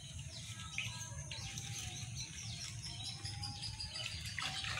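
Small birds chirping, a string of short sweeping calls, over a steady low rumble.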